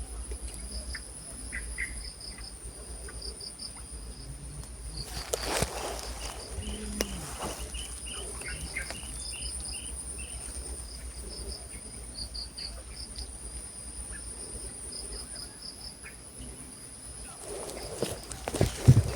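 Insects chirring: a steady high drone with rows of rapid pulsed chirps over it. There is a brief rustle about five seconds in and a louder bout of handling noise near the end.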